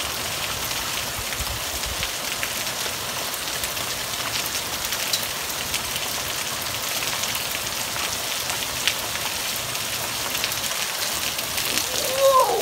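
Heavy fall of small pea-sized hail: a steady hiss with many scattered sharp ticks of hailstones striking. Near the end a short pitched sound rises and then falls away.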